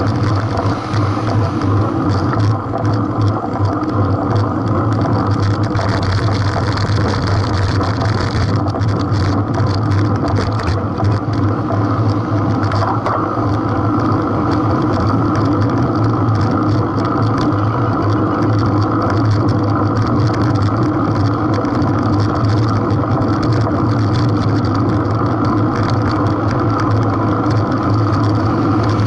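Steady wind and road rumble on a bicycle-mounted camera riding in a road race, with a constant low hum underneath.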